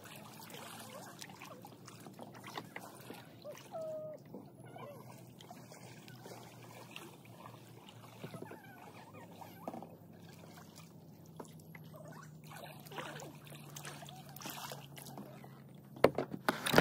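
Kayak paddling: water trickling and dripping off the paddle blades with small splashes, and a few louder knocks near the end.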